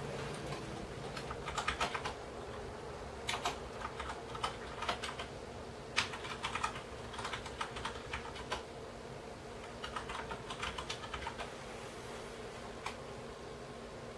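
Computer keyboard typing in short bursts of rapid keystrokes, over a steady low hum. The typing stops about 11 seconds in, with one last keystroke near the end.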